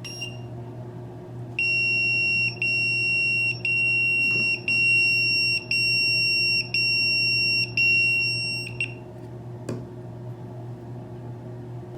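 POCSAG numeric pager sounding its alert for an incoming call from a JD-180 pull-cord emergency transmitter: about seven high-pitched beeps, each just under a second long with short gaps. A brief beep comes just before the series, and a single click follows near the end, over a steady low hum.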